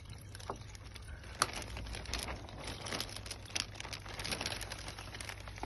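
Clear plastic fish bag crinkling as it is handled and opened to let the rudd out. It gives irregular crackles that begin about a second and a half in and come thick and fast through the middle.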